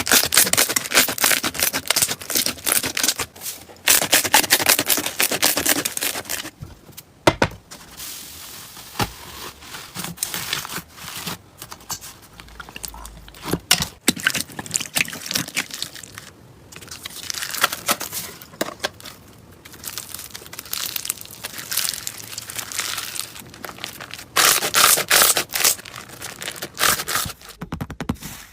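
Slime being squeezed, pressed and stretched by hand, giving dense crackling and popping in bursts. It is loudest at the start and again near the end, softer in between.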